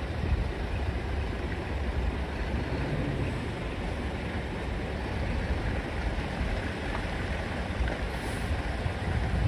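Heavy truck engines running, a steady low rumble over an even hiss.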